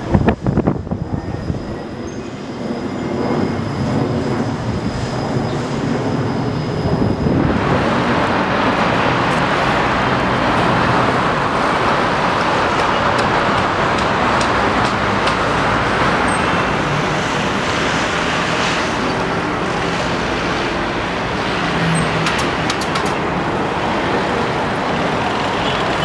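Steady road traffic noise from a city street, a continuous wash of passing vehicles, coming in suddenly about seven seconds in after a quieter stretch with a few sharp knocks at the start.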